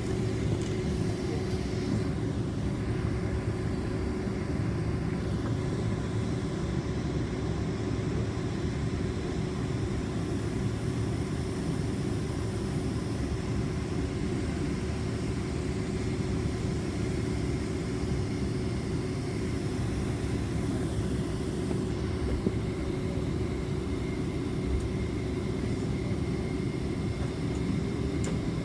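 Steady low rumble inside the cabin of a Boeing 767-400ER airliner with its engines running at taxi power, with a constant hum running through it.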